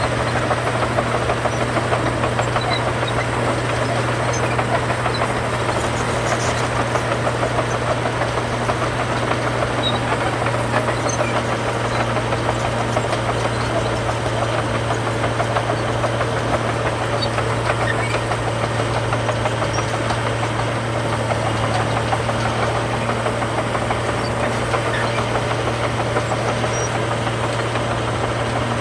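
Heavy diesel engine of earthmoving machinery running steadily at an even speed, a continuous low drone with no revving or pauses.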